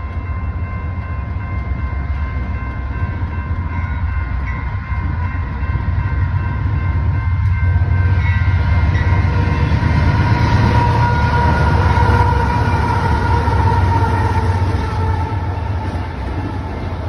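Union Pacific freight train approaching and passing, its diesel locomotives rumbling louder as they near and go by, with the horn held in a steady chord whose pitch sags slightly as the locomotives pass. Toward the end, freight cars roll past close by.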